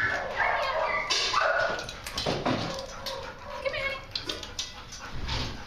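Husky-type dog whining and yipping, with pitched, wavering calls in the first second or two that then grow quieter and more broken.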